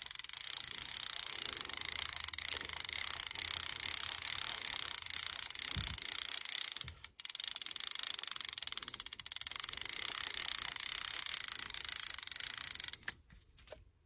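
Okuma Magda Pro 20DXT line-counter trolling reel being cranked to wind monofilament backing onto its spool: a steady mechanical whir of fine, rapid clicks. It breaks off briefly about halfway through and stops near the end.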